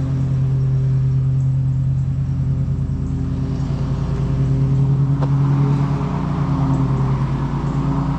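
Car engine running steadily under load as the car climbs a steep grade, heard from inside the cabin, a little louder about halfway through.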